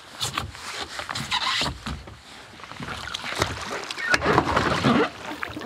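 Water splashing and sloshing as a person hauls himself out of the sea onto a sea kayak's deck during a heel-hook re-entry, with irregular knocks and scrapes of body and gear against the hull.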